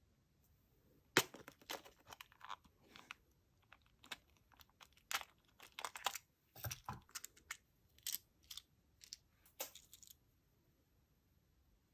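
Clear plastic compartment organizer box and the plastic chain nail parts inside it being handled: an irregular run of small sharp plastic clicks, taps and rattles from about a second in, stopping near the end.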